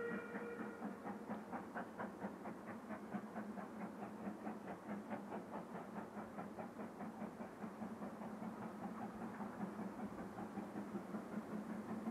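Steam locomotive working a train, its exhaust beating regularly at about four or five beats a second over a steady low hum, just after the tail end of its whistle dies away at the start.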